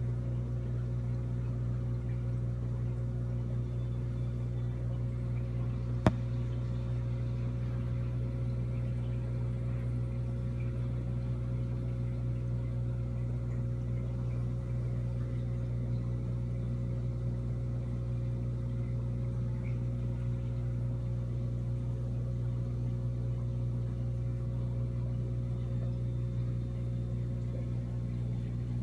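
Steady low hum of an aquarium air pump, the kind that drives a sponge filter, with one sharp click about six seconds in.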